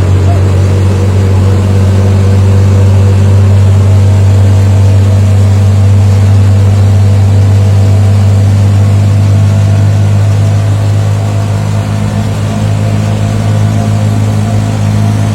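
A vehicle engine running at a steady speed, a low, even hum with overtones, easing slightly in level about two-thirds of the way through.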